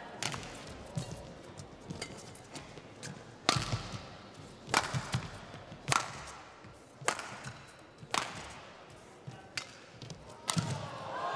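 Badminton rally: sharp cracks of rackets striking the shuttlecock, roughly one a second, traded back and forth. Near the end a longer sound with a bending pitch follows as the rally ends.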